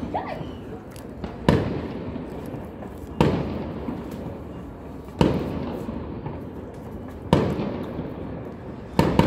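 Fireworks going off. There are five loud bangs about two seconds apart, each trailing off in a long fading echo.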